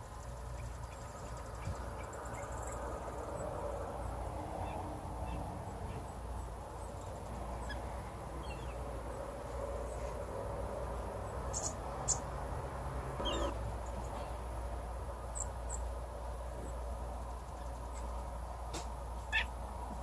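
Chickadees giving short, very high chirps now and then, most of them in the second half, over a steady low outdoor rumble.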